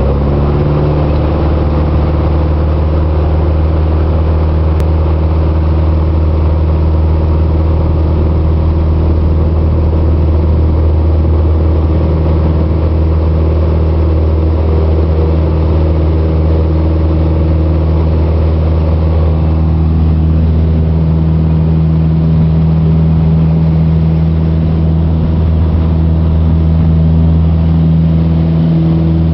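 Piper PA-28-181 Archer's four-cylinder Lycoming engine and propeller at takeoff power, heard from inside the cockpit: a loud, steady drone through the takeoff roll and climb-out, its pitch shifting slightly about two-thirds of the way through.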